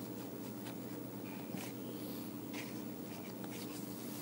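Faint scratching and light clicks of a metal pick working a starter rope through the plastic recoil starter housing of a string trimmer, over a steady low hum.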